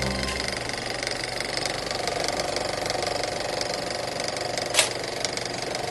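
Propeller aircraft engines droning with a rapid, steady mechanical chatter, starting abruptly. A single sharp crack sounds near the end.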